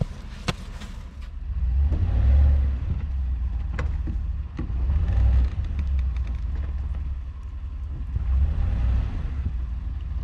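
Pickup truck engine revving in repeated surges as the truck tries to drive out of deep snow with its plow buried; it stays stuck.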